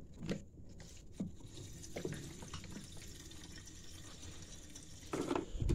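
Gasoline pouring from a plastic gas can through its spout into a riding lawn mower's empty plastic fuel tank, a steady fill. There are a few light knocks, and a louder knock near the end.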